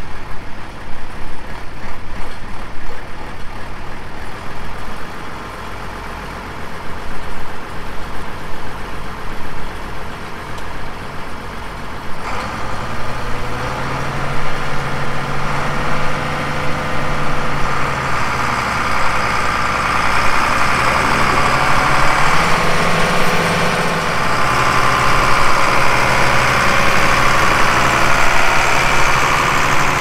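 International Harvester tractor's diesel engine idling, then about 12 seconds in the engine note rises as it pulls away towing loaded grain carts. The pitch steps up again a couple of times, and it grows louder as it drives up and past.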